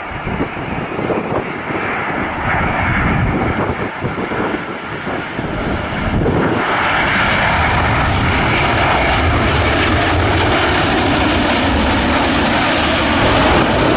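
Boeing 787 Dreamliner's jet engines. The sound grows louder about six seconds in, then runs loud and steady.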